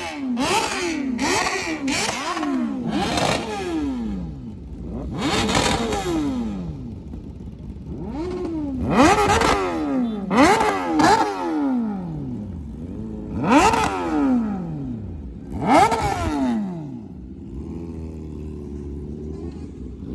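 Superbike engine revved hard and repeatedly on the throttle: quick blips at first, then longer single revs every second or two, each rising and falling in pitch. It settles to a steady idle near the end. The bike is really loud.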